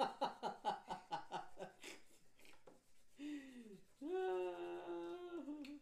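Laughter in a quick run of short ha-ha pulses, followed about four seconds in by a voice holding one long, steady note.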